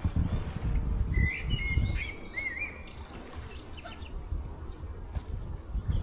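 A small songbird sings one short warbling phrase about a second in, over a steady low rumble.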